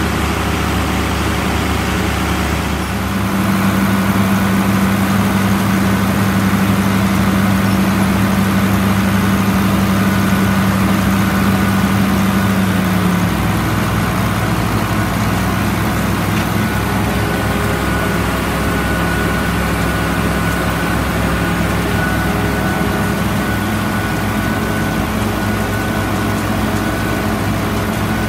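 Heavy farm machinery engines running steadily, with the engine pitch shifting about three seconds in and again around thirteen seconds.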